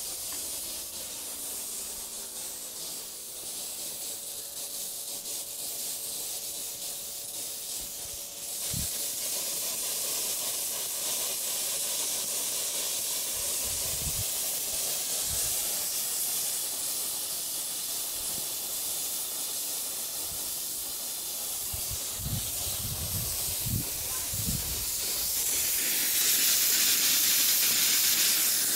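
Pop-up lawn sprinkler heads hissing as compressed air blows the remaining water out of the irrigation zone, sending out a fine mist; the hiss gets louder near the end. A few soft low thumps are heard in the middle and later part.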